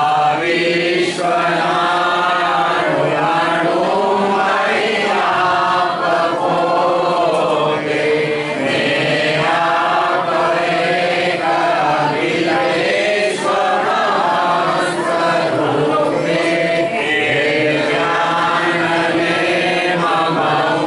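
A congregation singing a Hindu devotional bhajan together in unison, one continuous chanted melody carried by many voices.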